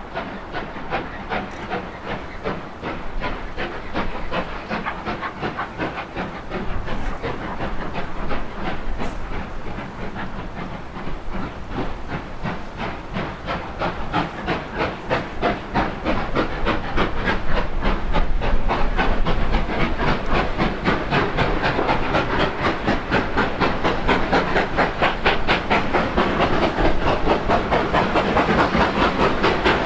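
Two GWR 4-6-0 steam locomotives, 6990 'Witherslack Hall' and 4079 'Pendennis Castle', double-heading a passenger train. Their rapid, rhythmic exhaust beats grow steadily louder as the train approaches.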